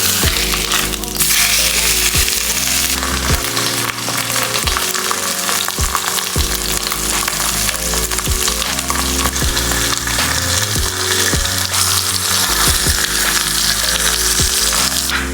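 Tallow heating in a pot with salt and water, sizzling steadily as the water beneath the fat heats: a stage in purifying the tallow. Rap music plays underneath.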